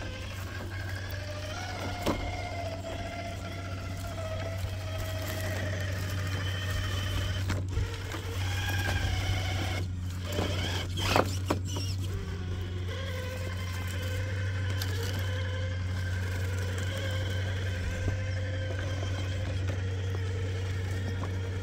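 Traxxas TRX-4 K10 scale RC crawler's electric motor and drivetrain whining as it creeps over rocks, the whine rising and falling with the throttle over a steady low hum. There are a few sharp knocks of the tires and chassis against rock, the loudest cluster about halfway through.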